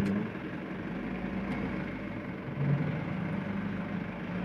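Mitsubishi Canter light truck's diesel engine running steadily, with a sharp knock right at the start.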